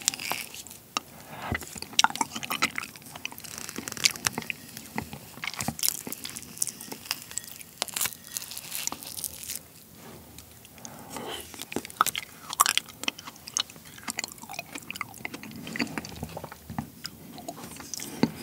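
Close-miked eating of frozen soft-ripe persimmon (seedless Cheongdo bansi): biting and chewing the icy, sticky flesh, with many sharp, irregular wet clicks and crackles. A wooden spoon scoops pieces from a small plate between bites.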